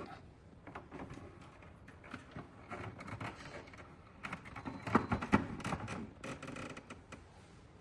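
Irregular clicks and knocks of a tennis ball machine's shell being handled and fitted back onto the machine, loudest about five seconds in.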